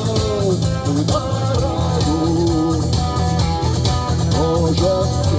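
Live rock band playing: a lead guitar line with bent notes over bass guitar and a steady drum beat.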